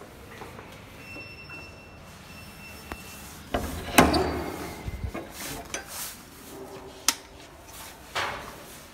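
Metal bolt and latch of a wooden door rattling and clacking as the door is unbolted and pushed open, the loudest clack about four seconds in, followed by a single sharp click about three seconds later.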